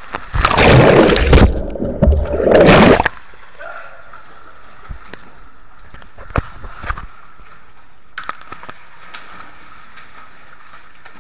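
Water splashing and gushing right over the microphone, very loud in two or three surges over the first three seconds, then a steady lower rush of water with scattered drips and knocks.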